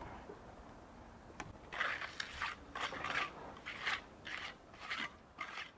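Mason's trowel scraping mortar across sawn stone blocks while pointing a block wall. It makes a run of quick, sharp scrapes, about two a second, beginning a couple of seconds in.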